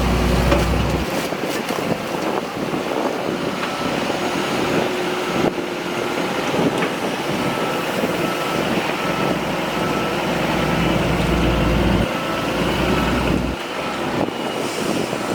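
Diesel engine of heavy earthmoving machinery working, its low rumble rising and falling. About six seconds in, a backup alarm starts beeping at a regular pace.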